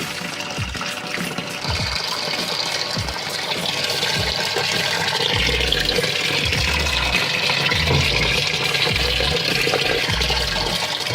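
Water gushing steadily into the drum of a Samsung top-loading washing machine as it fills.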